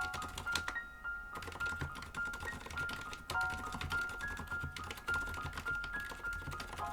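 Light background music with a simple bell-like melody, over a steady patter of keystrokes on a mechanical keyboard with Cherry silent red switches.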